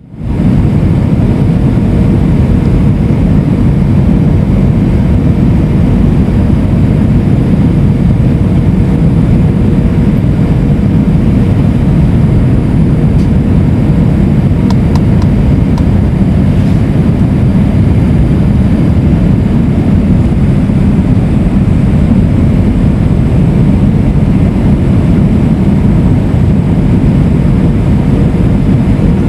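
Steady low rumble of engine and airflow noise inside the cabin of an Airbus A320 airliner coming in to land, with a faint steady hum over it and a few faint ticks about halfway through.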